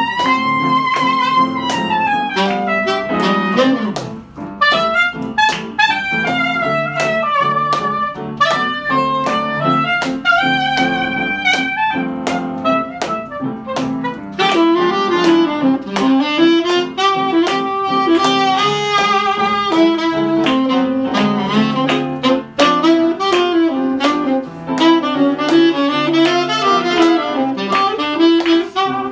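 Live jazz: a saxophone plays a winding, bending solo line over upright piano accompaniment.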